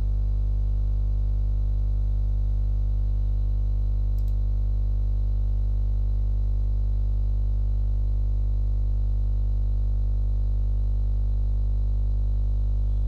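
Steady electrical hum and buzz from the recording chain, loud and unchanging, with a faint click about four seconds in.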